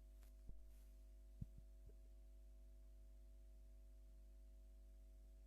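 Near silence with a steady low electrical hum, and a few faint soft thumps in the first two seconds.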